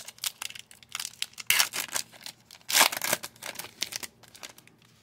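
A trading-card pack wrapper being torn open and crinkled: a run of irregular crackles, with louder rips about one and a half and three seconds in, dying away near the end.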